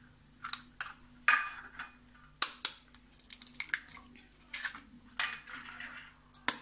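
Eggs cracked one after another on the rim of a stainless steel bowl: a string of sharp taps and shell cracks at irregular intervals, some with a brief metallic ring.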